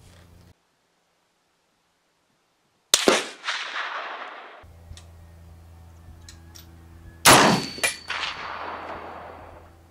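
Two shots from an M1A National Match semi-automatic rifle in .308, about four seconds apart, each a sharp crack followed by a long echo.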